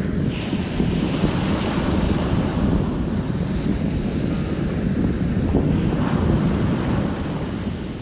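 Small sea waves breaking and washing up a coarse-sand beach, with wind rumbling on the phone's microphone.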